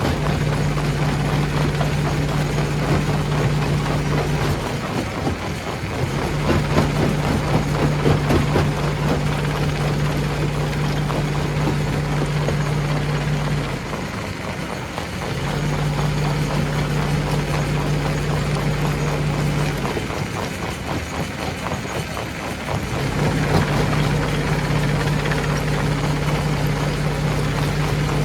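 Stone crusher machinery running: a steady low motor hum over a constant rattling, grinding noise of rock being crushed. The hum drops out briefly three times.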